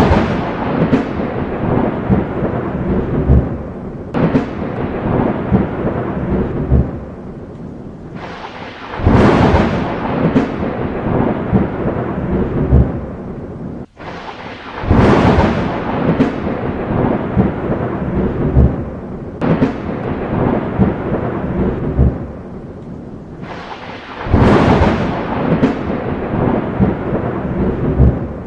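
Thunderstorm: thunder rumbling and crackling in four loud peals that swell and fade over several seconds each, with rain falling steadily underneath.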